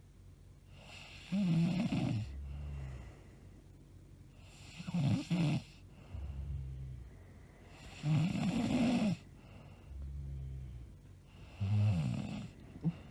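A woman snoring in her sleep: four loud snores on the in-breath, about three and a half seconds apart, each followed by a softer low rumble on the out-breath.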